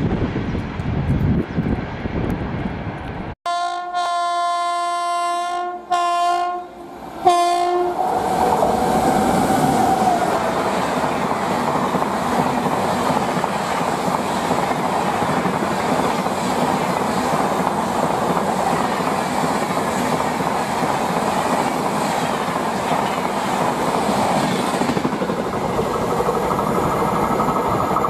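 Wind buffeting the microphone, then a WAP-7 electric locomotive's horn sounding three times: one long blast and two short ones, the last trailing off a little lower in pitch. After that comes the steady rush and rattle of the Rajdhani coaches passing at speed.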